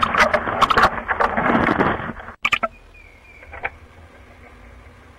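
Loud scratchy rustling and clicking from barred owls shifting on the wood shavings of their nest box, picked up close by the nest camera's microphone. It breaks off sharply about halfway, a few last clicks follow, and then there is only a low steady hiss.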